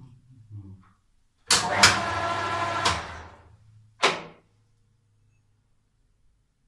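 Small metal lathe switched on briefly: its motor and headstock gearing run with a steady pitch for about a second and a half, then wind down. A second, shorter burst of the motor comes about a second later and dies away quickly.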